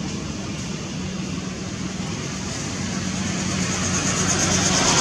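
Steady engine hum with outdoor background noise, growing louder in the last second or two, with a high pulsing buzz coming up near the end.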